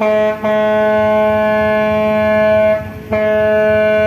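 Ship's horn on a ferry sounding: a short toot, then two long steady blasts of about two and a half seconds each, with a brief gap between them.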